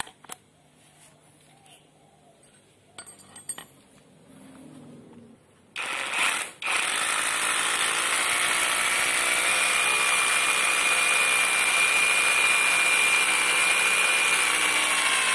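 A few faint clicks as an 8 mm SDS drill bit is pushed into the chuck. About six seconds in, the OSUKA OSRH-26 cordless brushless rotary hammer starts and runs steadily in hammer-drill mode, boring into hard old concrete with a high steady whine over the noise.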